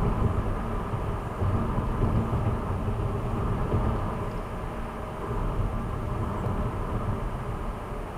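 Car driving at a steady speed, heard from inside the cabin: a steady low rumble of tyres on the road and the engine.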